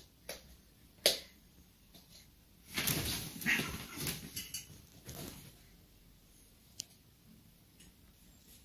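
Two domestic cats in a brief fight: a burst of cat cries and scrambling that lasts about two seconds, starting about three seconds in. A single sharp click comes about a second in.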